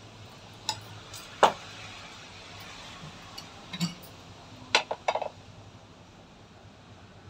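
Metal kadai pans clanking against the gas stove's grate as they are moved and an empty kadai is set on the burner: a few sharp knocks with short metallic ringing, the loudest about a second and a half in, and a quick cluster of clanks around five seconds.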